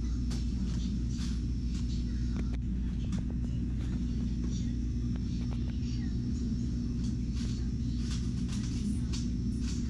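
Steady low hum of a convenience store interior, with scattered small clicks and rustles from handling close to the camera.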